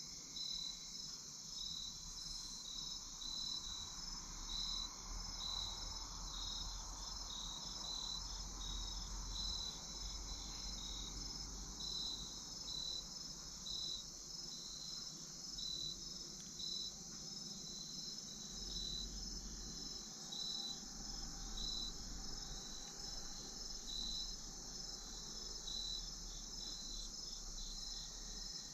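Evening insect chorus of crickets: a steady high buzz with a regular pulsing chirp a little more than once a second, over a faint low rumble.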